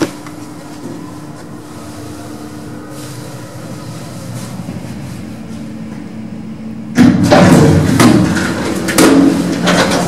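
ThyssenKrupp goods lift travelling with a steady motor hum. About seven seconds in it stops and its sliding doors open with a loud metallic rattling clatter in two bursts.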